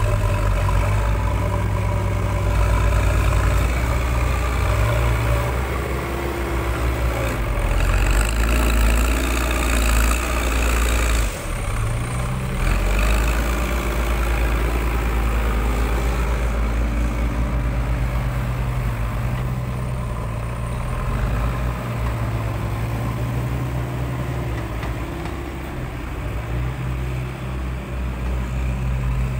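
Diesel engines of several backhoe loaders running close by, steady and low, swelling louder about eight to ten seconds in as a machine works harder.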